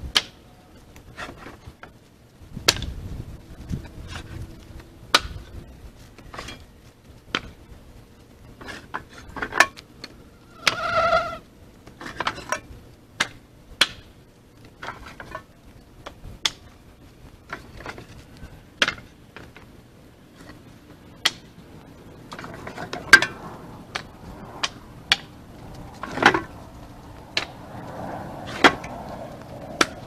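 Split firewood being stacked onto a woodpile: pieces of wood knock against the stacked wood in sharp, irregular knocks, about one every second or two. A short pitched call sounds once, about eleven seconds in.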